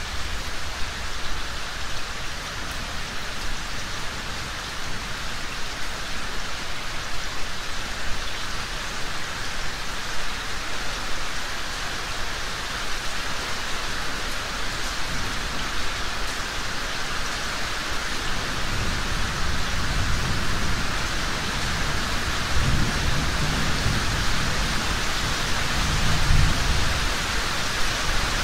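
Steady rain falling, an even wash of noise, with a low rolling rumble of thunder building in the second half and strongest near the end.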